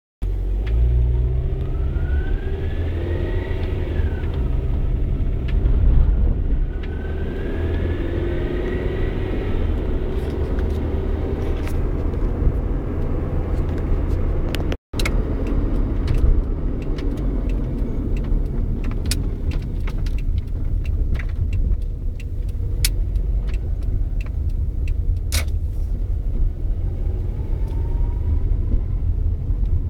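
Honda Prelude running with a whine that rises in pitch as it speeds up, heard twice in the first half and again near the end, over a steady low engine and road rumble. The whine is the fault under investigation, taken by the owner to come from the engine.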